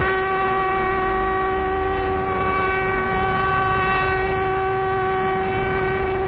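A long, steady horn-like tone that starts abruptly and holds at one pitch, over the hiss of an old film soundtrack.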